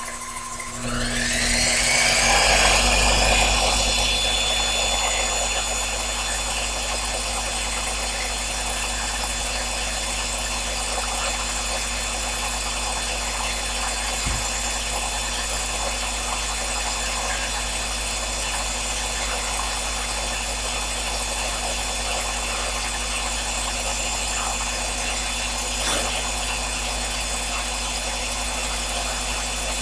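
Sherline lathe motor spinning up with a rising whine about a second in, then running steadily while the machinist sweetens up a ragged turned diameter.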